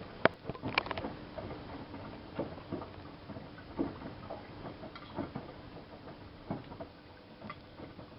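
Miele Softtronic W3657 front-loading washing machine early in a 60 °C coloured wash: the drum turns and wet laundry tumbles with irregular soft knocks and patter over a faint steady hum.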